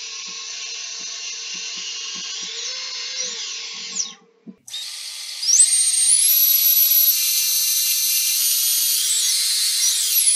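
Brushless motor of a small 3-inch FPV quadcopter spinning with no prop during a bench motor test: a high whine that steps up in pitch as the throttle is raised. It breaks off briefly about four seconds in, comes back louder and higher, then drops away as the motor spins down near the end. This bearing check finds the motor 'not too bad'.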